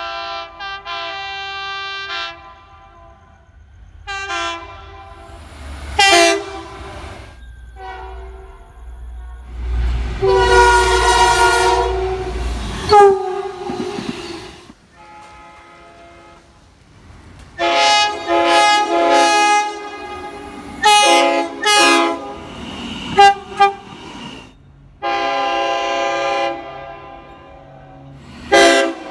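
Train horns sounding a series of short and long blasts, each a steady multi-note chord, across several separate recordings. The loudest, longest blast, about ten seconds in, comes with the deep rumble of a train passing close.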